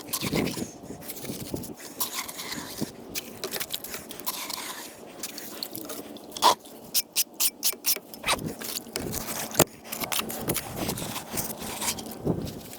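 Irregular scraping and crunching of something gritty, with a quick run of sharp clicks a little past the middle.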